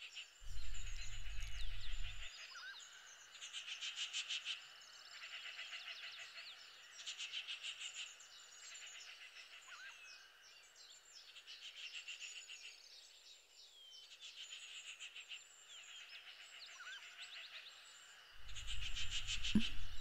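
Ambience of frogs calling: high pulsed trills that come and go every couple of seconds, with faint small chirps between them. A low hum sits under the first two seconds and returns near the end.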